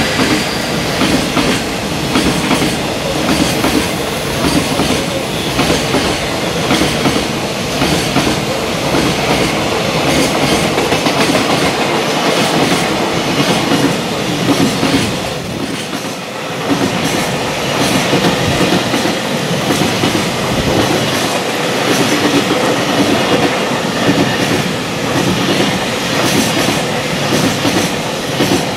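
A long freight train of container flat wagons behind a JR Freight EF210 electric locomotive passes at speed. Its wheels clatter continuously over the rail joints in a steady clickety-clack.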